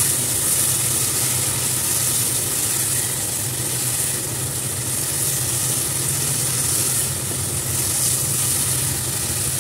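Thick tomato masala gravy sizzling in oil in a nonstick kadhai while it is stirred with a wooden spatula, over a steady low hum.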